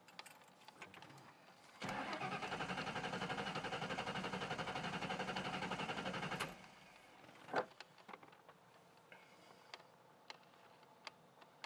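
Starter cranking the Ford Mustang GT's 4.6-litre V8 for about four and a half seconds with an even pulsing rhythm, then stopping without the engine catching. This is a crank-but-no-start after the chip install, with the anti-theft light on, which the owner puts down to an ECU ground he forgot to reconnect. A single sharp click follows about a second later.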